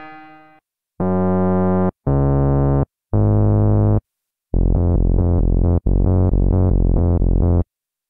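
Korg Mono/Poly software synthesizer, an emulation of the 1981 analog four-oscillator Mono/Poly, playing presets. A fading bowed-piano tone dies away, then the Circle Puller preset plays three short held notes that start and stop abruptly. A longer passage of rapidly pulsing notes follows for about three seconds.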